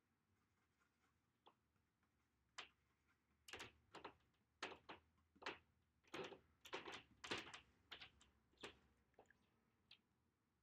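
A series of about a dozen faint, irregular knocks and clicks from painting supplies being handled and set down.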